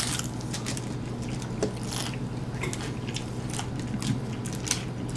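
Close-up chewing and crunching of tacos, with irregular crackles and lip smacking.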